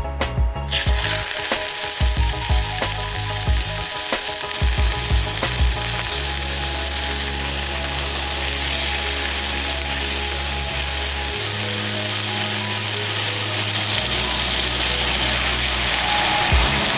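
Steak sizzling as it fries in hot olive oil in a cast-iron skillet: a dense, steady sizzle that starts under a second in, when the meat is laid in the pan, and keeps going. By the end the steak is frying in foaming butter.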